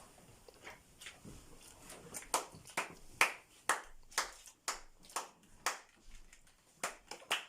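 A series of sharp, irregular clicks, about a dozen in all, with short gaps between them.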